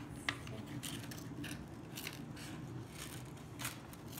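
Small blue-handled children's scissors snipping through construction paper, a string of short, irregular snips with the paper crinkling between them.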